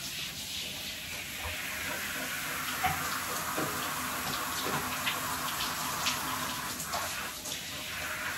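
Water spraying from a handheld shower head onto a dog in a bathtub: a steady hiss of running water, with a few faint knocks and splashes.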